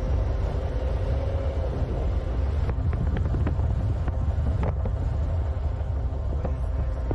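Steady low rumble of a car on the move, heard from inside the cabin: road and engine noise, with a few faint clicks about three and four and a half seconds in.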